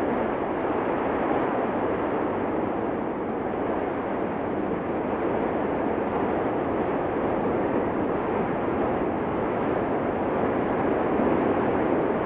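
Cumbre Vieja volcano erupting: a steady, continuous roar without breaks or separate blasts.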